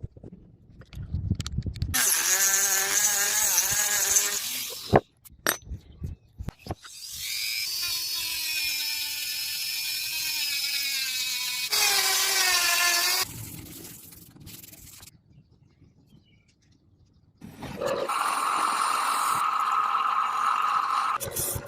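Power tool whining in three separate stretches with quieter gaps between them, its pitch wavering as it is worked against the steel.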